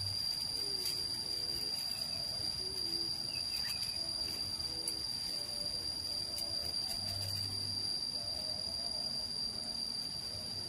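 Insects, crickets or similar, trilling in one steady, unbroken high-pitched tone, with faint wavering lower calls now and then.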